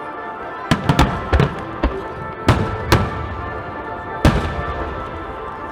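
Fireworks bursting: about seven sharp bangs in quick, irregular succession, the last a single loud one near the end, over steady background music.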